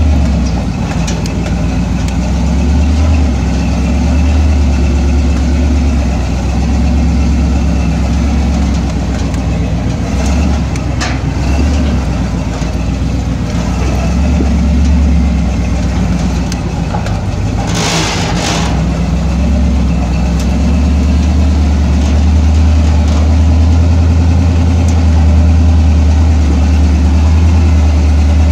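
Off-road 4x4's engine running steadily as it drives a rough dirt trail, a continuous low drone. Brief noisy bursts come through about ten seconds in and again around eighteen seconds in.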